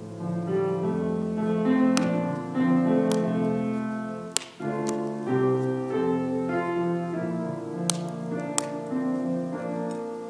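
Keyboard playing slow, sustained chords, with a few sharp clicks over the music.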